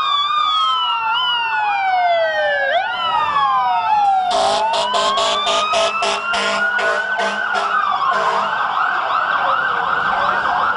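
Several emergency-vehicle sirens wailing over one another, their pitches rising and falling out of step. From about four seconds in, a quick run of sharp blasts joins them, and near the end one siren switches to a fast yelp.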